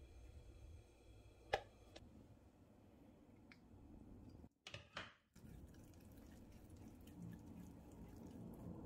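Near silence, room tone broken by a few sharp clicks. The loudest click comes about a second and a half in, and a short pair of sounds falls about five seconds in.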